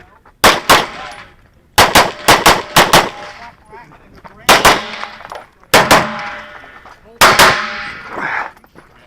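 Rapid pistol fire: about a dozen sharp shots, mostly in quick pairs, with a faster string of about five shots near the two-second mark.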